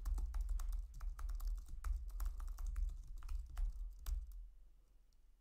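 Typing on a computer keyboard: a quick, irregular run of keystrokes that stops about four seconds in.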